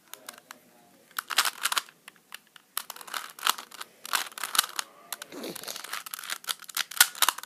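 A 3x3 Rubik's cube being twisted by hand: quick, irregular clusters of plastic clicks and scrapes as the layers turn.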